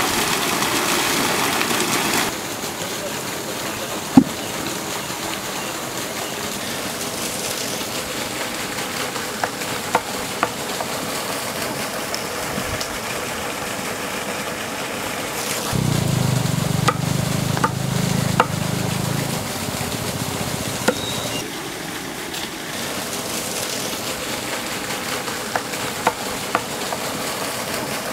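Water gushing from a pipe for about two seconds. Then a cleaver chopping raw chicken on a wooden board, heard as scattered single knocks, the loudest about four seconds in.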